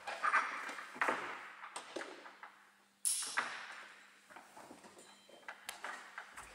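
Climbing rope being pulled through a belay device as slack is paid out and taken in: a few swishing pulls near the start, about a second in and a sharper one about three seconds in, each fading away, with light clicks between.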